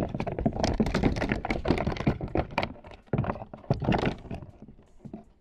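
A hooked piranha thrashing against a plastic kayak: a dense run of irregular thuds and knocks for about four seconds, dying away near the end.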